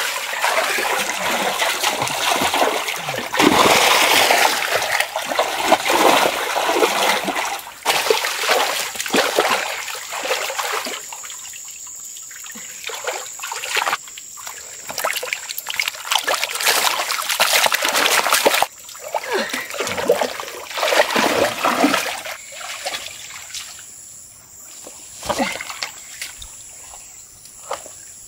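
Splashing and sloshing of shallow, muddy pond water as fish are caught by hand and dropped into a plastic basin. The splashes thin out in the last third, leaving a trickle of water, and a thin steady high tone comes in about a third of the way through.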